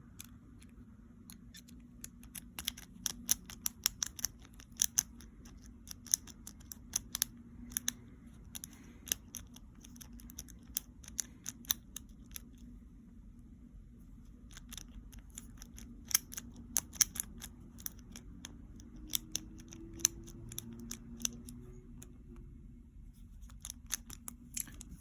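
Lock pick and tension wrench working the pins inside a Master Lock No. 1 pin-tumbler padlock: irregular sharp metallic clicks and ticks, coming in clusters with a short lull about halfway through. A faint steady low hum sits underneath.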